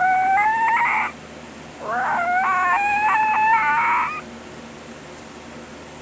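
A person imitating animal noises with their voice: a call rising in pitch that breaks into a rattle about a second in, then a longer rattling, warbling call from about two to four seconds in.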